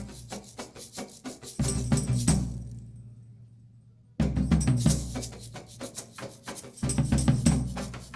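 Instrumental cumbia with a steady percussion beat and bass. The music fades out a little after two seconds in, stops for about a second and a half, then comes back in sharply.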